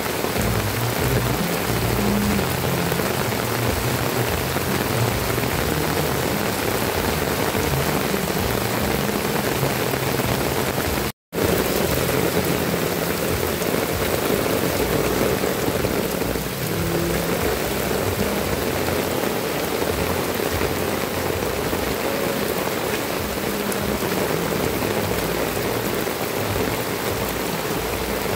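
Heavy rain pouring steadily onto clay roof tiles, foliage and a wet road. The sound drops out completely for an instant about a third of the way in.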